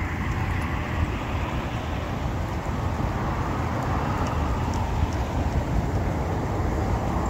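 Wind buffeting the microphone: a steady, rumbling rush of noise with fluttering gusts.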